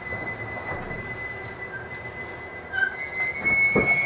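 Interior running noise of an 813 series electric train's motor car as it slows to a stop at a station platform: a low rumble that eases off, with a steady high-pitched whine. A single thump comes near the end as the train halts.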